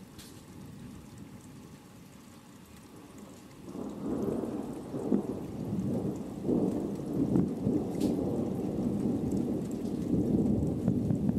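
Steady rain, then about four seconds in a long rolling rumble of thunder from a winter thunderstorm sets in and keeps going, swelling and easing.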